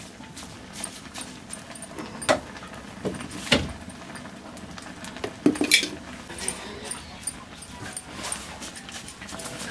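Wooden spatula stirring stinging nettles in a metal pan, with irregular knocks, clinks and scrapes against the pan; the loudest knock comes about three and a half seconds in.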